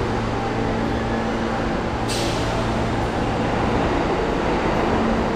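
New York City subway G train approaching through the tunnel into the station: a steady rumble that grows slowly louder. About two seconds in comes a short hiss that fades within a second.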